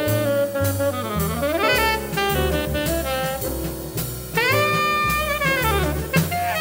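Jazz quintet recording: a tenor saxophone plays a flowing melodic line with pitch bends and slurred glides, over a walking double bass, piano, and drums with steady cymbal strokes.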